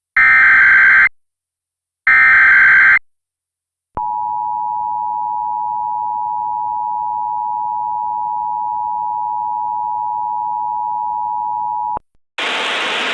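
Emergency Alert System tones: the last two of the three one-second SAME data header bursts, a warbling, modem-like screech, then the steady two-tone EAS attention signal held for about eight seconds. It cuts off suddenly, and a hissy, radio-like sound starts just before the end as the alert message begins.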